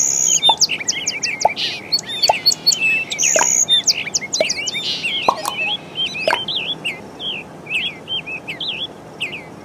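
Several small birds chirping and whistling, many short calls overlapping in quick succession, thinning out in the last few seconds.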